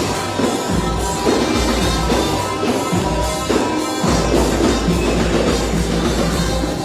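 Band music with drums and a heavy, steady bass line, with no clear singing.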